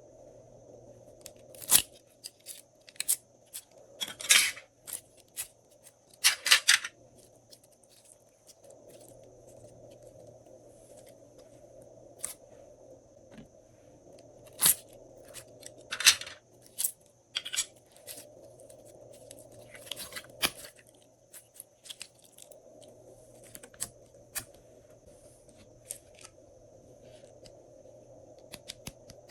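Glossy slime being worked by hand, giving irregular sticky clicks, pops and short crackles, some loud and many faint.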